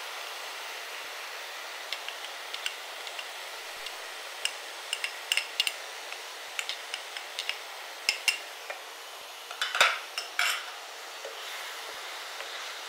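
Button mushrooms and soya chunks sautéing with a steady sizzle in a ceramic-lined frying pan while a wooden spoon stirs them. The spoon makes irregular sharp knocks and scrapes against the pan, starting about two seconds in, with the loudest clatter about ten seconds in.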